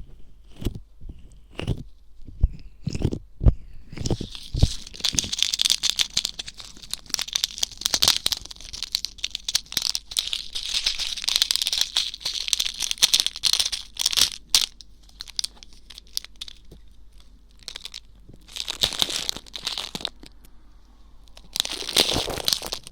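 Ear pick scratching and scraping in close-miked ear-cleaning ASMR, giving dry rustling scratches. The first few seconds hold sharp taps and clicks. A long stretch of dense, steady scraping follows, then scattered clicks, with two more short bursts of scratching later on.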